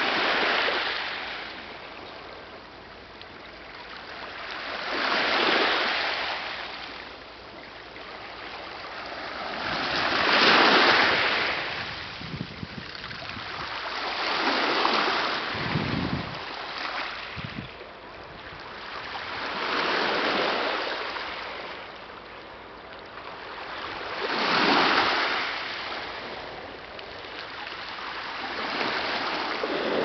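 Small Black Sea waves washing in over a pebble beach and drawing back, one surge of surf about every five seconds.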